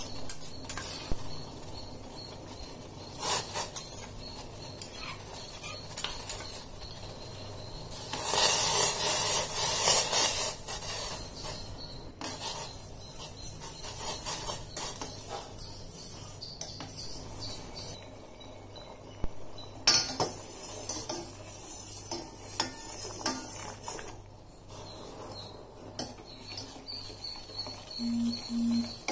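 A steel spoon stirring agar agar (china grass) in a stainless steel saucepan of boiling water, with many clicks and scrapes of the spoon against the pan. A louder rush of noise lasts a couple of seconds about eight seconds in.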